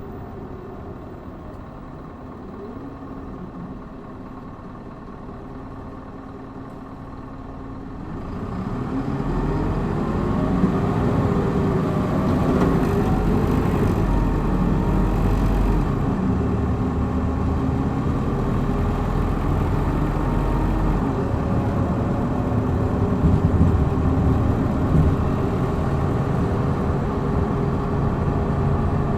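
Hino Blue Ribbon city bus's diesel engine running quietly, then about eight seconds in it opens up and accelerates hard in power mode, its note rising, falling back once and rising again, before it runs on loudly and steadily at speed.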